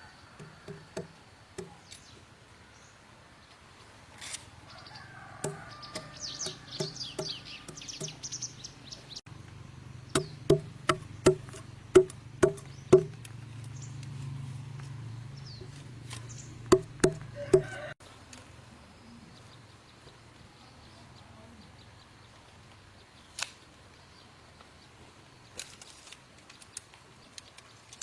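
A series of sharp knocks from a hand tool striking wood, about two a second, in a run of roughly seven blows and then three more, each with a short ringing tone. Birds chirp before the blows begin.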